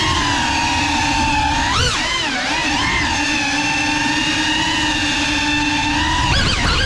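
GEPRC Cinelog 35 FPV drone's motors and propellers whining steadily. The pitch swoops up and down briefly about two seconds in and again near the end as the throttle changes.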